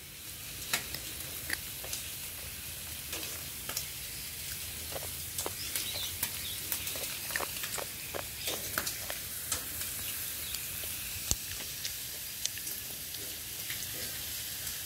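Bacon frying on a barbecue: a steady sizzle with many small sharp pops and crackles.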